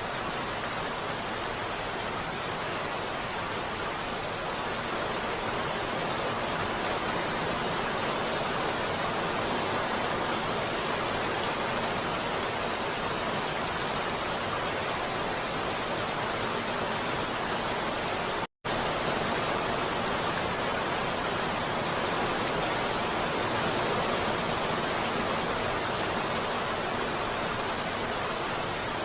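Steady heavy rain, an even hiss with no single drops standing out. It cuts out for a split second about two-thirds of the way through.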